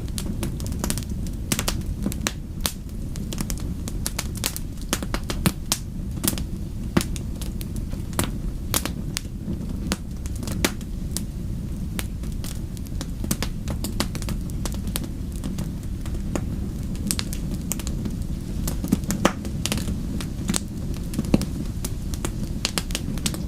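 Fireplace fire crackling, with many irregular sharp pops and snaps over a steady low rumble.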